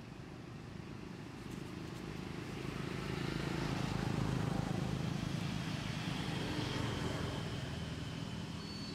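A passing motor vehicle's engine: a low drone that grows louder over the first few seconds, peaks about four to five seconds in, then slowly fades.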